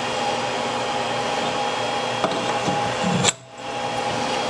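A small electric motor running steadily, a whirring hiss with a faint whine, breaking off for a moment about three seconds in and then starting again.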